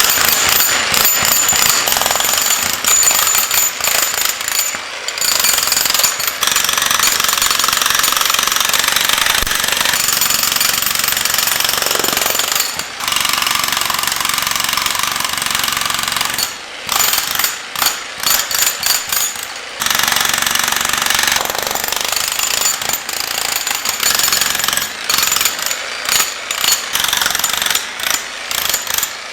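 A jackhammer with a chisel bit hammering into concrete pillars, running in long stretches with brief stops. It starts and stops more often in a few short runs about two-thirds of the way through and again near the end.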